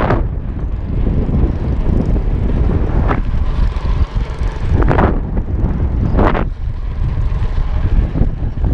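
Wind buffeting the microphone of a camera on a mountain bike moving along a concrete road: a loud, steady low rumble, with three short rushing bursts over it.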